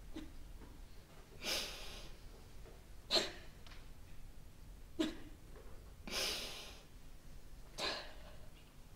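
A person breathing audibly: five breaths about a second and a half apart, longer drawn-out ones alternating with short sharp ones.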